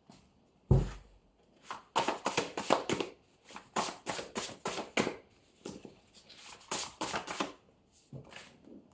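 A deck of cards being shuffled by hand: a soft thump just under a second in, then a long run of quick card flicks and slaps that thins out near the end.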